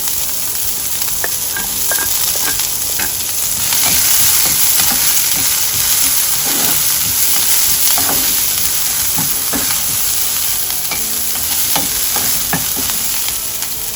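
Chopped onion sizzling steadily in hot oil with cumin seeds and green chili as it is sautéed, with scattered short clicks and scrapes as it is stirred in the pan.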